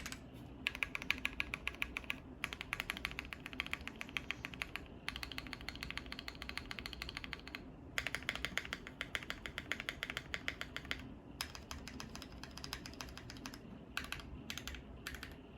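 Typing on a Bakeneko60 mechanical keyboard with lubed SP-Star Meteor White switches, an FR4 plate and GMK keycaps: fast, continuous keystrokes in runs of a few seconds with short pauses between, ending in a few short bursts.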